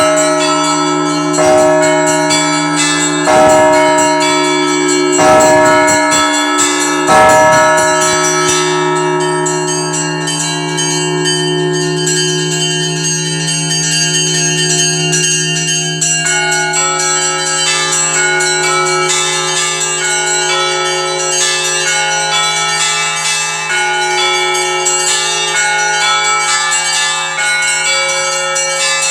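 Festive peal of Russian Orthodox church bells. For the first eight seconds or so, heavy strokes fall about every two seconds over the steady hum of sustained ringing; then the heavy strokes stop and smaller bells keep up a dense, continuous chiming.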